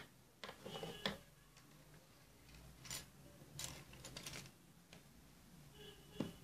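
Faint scattered clicks, taps and rustles of scissors and a crochet hook being picked up and set down on a wooden tabletop, with a sharper knock about a second in and another near the end.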